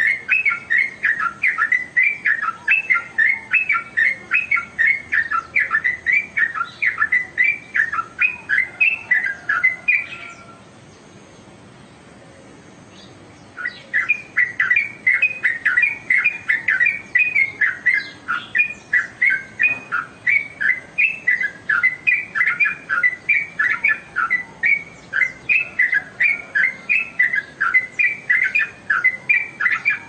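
Caged yellow-vented bulbul (trucukan) singing a fast run of repeated bubbly notes, about three a second; it breaks off about a third of the way through, stays quiet for about three seconds, then takes up the song again.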